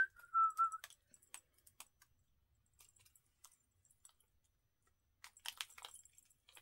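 A short whistled note that has just slid upward, holds and sinks slightly, then stops within the first second. It is followed by scattered light clicks and, about five seconds in, a brief run of clicking and rustling as small jewelry packaging is handled.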